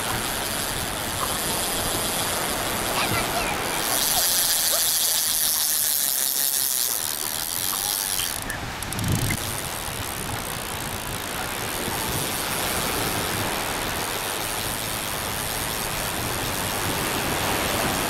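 Small sea waves breaking and washing on the shore, with wind rumbling on the microphone. A brighter hiss of wash runs from about four to eight seconds in.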